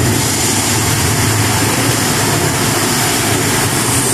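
Loud, steady rumbling and rushing sound effects from a projection show's soundtrack, played over loudspeakers.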